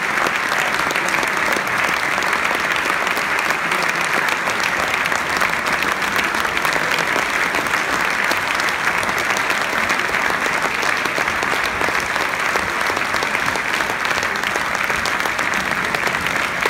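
A large audience applauding steadily, a dense even clapping that holds at the same level throughout.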